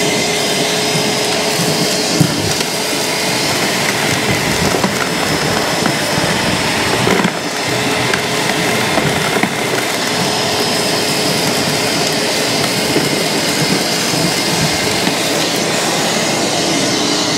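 Shop vacuum running steadily with a steady hum, its hose sucking up loose rust flakes from a rubber floor mat.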